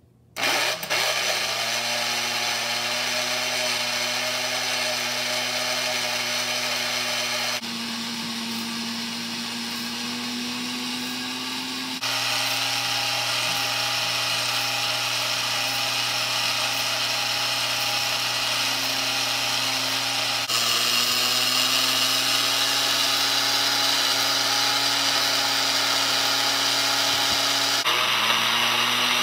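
Lionel 97 coal elevator's electric motor starting up about half a second in, with a short rising whine, then running steadily as it drives the bucket chain, over a low steady hum.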